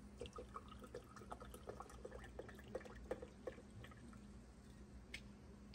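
Faint pouring of liquid from a glass bottle into a ceramic cup: a thin stream splashing and trickling in many small irregular drips.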